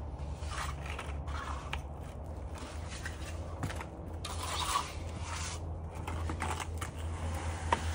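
Irregular scraping and swishing of tools working wet concrete, with a few sharp clicks, over a steady low hum.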